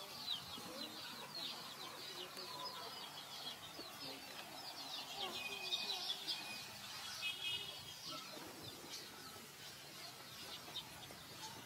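Outdoor background of birds chirping: many short, quick high-pitched calls repeating throughout, with a brief run of rapid repeated notes about seven seconds in.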